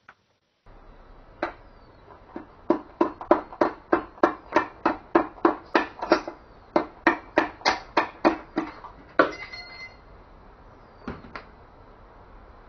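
A fast run of sharp knocks, about three a second for some seven seconds, then a short ringing and two last knocks near the end.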